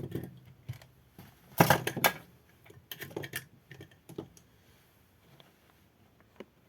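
Clicks and knocks of tools and parts being handled on a repair bench. The loudest cluster comes about one and a half to two seconds in, followed by lighter taps that thin out toward the end.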